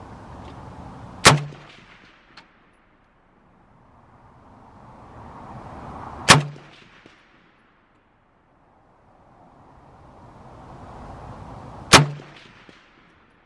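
Three single shots from a PSL semi-automatic rifle in 7.62x54R, about five to six seconds apart. A faint metallic clang comes about a second after the first shot: a bullet hitting a distant steel target.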